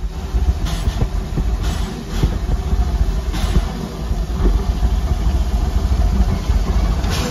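Steam locomotive of the park railroad close by, with a steady low rumble broken by a few short bursts of hissing steam.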